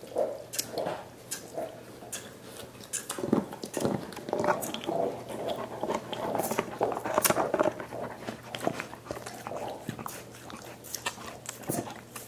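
Dogs gnawing and licking at soup bones: wet, slurping, smacking mouth sounds mixed with irregular crunching clicks, like the noise at the end of a milkshake.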